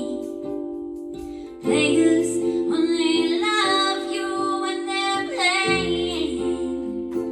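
Music: a woman singing over a plucked-string accompaniment. The voice comes in about two seconds in and holds long notes over a steady chord.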